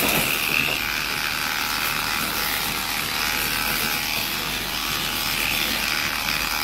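Electric dog grooming clippers running steadily as they shave through a dog's tightly matted, felted coat.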